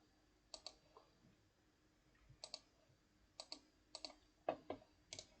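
Faint computer mouse clicks, about six quick pairs of clicks spread out at irregular gaps.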